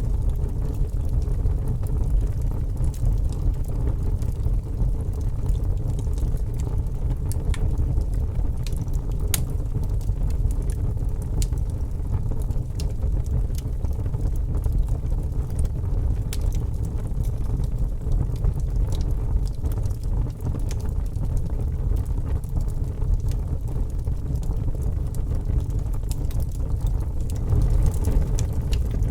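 Fire crackling: scattered sharp crackles and pops over a steady low rumble.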